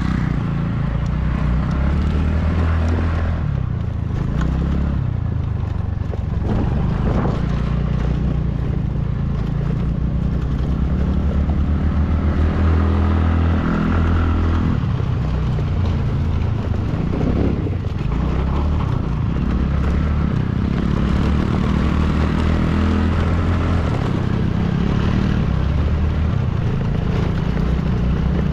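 A vehicle engine running continuously under load on a rough track, its pitch shifting up and down several times as it changes speed, with rattling over it.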